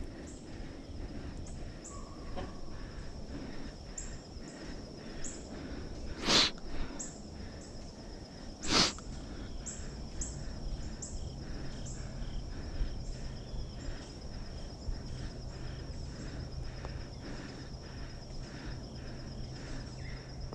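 Woodland ambience: a steady high insect drone with repeated short high bird chirps. Two loud, sharp noises come about two and a half seconds apart near the middle, and a low steady hum joins soon after.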